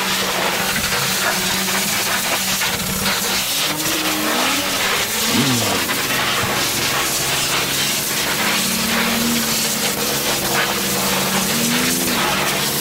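Pressure washer lance spraying water onto a dirt bike: a steady, loud hiss of spray hitting the bike and the wet paving. Under it runs a low hum with tones that rise and fall in pitch a few times.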